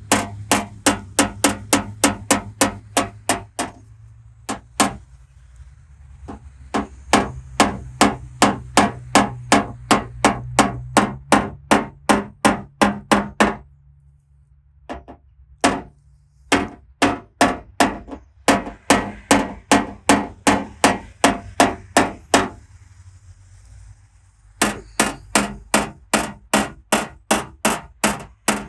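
Quick, light hammer taps on a knockdown tool against a car's sheet-metal panel, about four a second, in runs of several seconds with short pauses: tapping down high spots in paintless dent repair.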